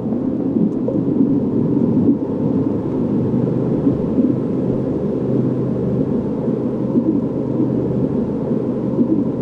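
A steady, low rumbling drone with faint held tones over it and no beat, typical of an ambient sound-design bed.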